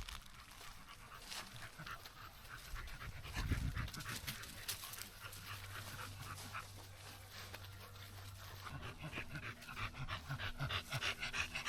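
American bully dogs panting in quick, repeated breaths, coming faster and closer together near the end. A low dull bump about three and a half seconds in.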